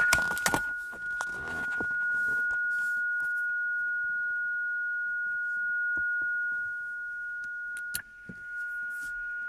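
Steady single-pitched beat note from a ham radio receiver tuned to the carrier of a 7 MHz crystal oscillator. Cable-handling knocks and rustle in the first two seconds, and a switch click about eight seconds in as the antenna controller is flipped from O mode to X mode.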